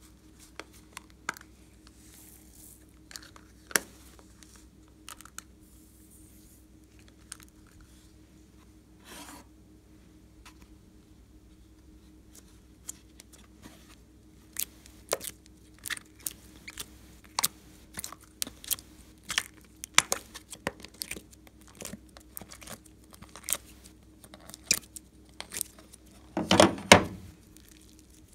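Sharp clicks and crackles of thin plastic being handled: small plastic cups of glitter, then a plastic mold tray flexed as pink slime is pressed out of it. The clicks grow denser about halfway through, with a louder crackling squish near the end.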